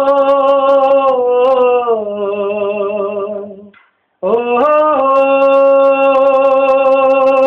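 A man singing solo without accompaniment, holding a long drawn-out vowel that steps down in pitch partway through. He breaks off briefly for breath about four seconds in, then slides up into another long held note.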